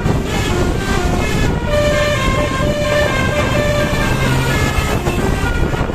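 Multi-trumpet basuri telolet bus horn playing a running melody of short, stepped notes over a steady low rumble.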